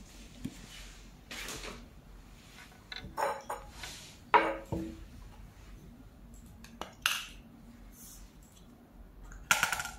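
Handling noises of a rifle scope being unboxed: a cardboard box rustling, then the metal scope tube and its sunshade clinking and knocking against a wooden table in scattered taps. The loudest knocks come about four and a half seconds in and just before the end.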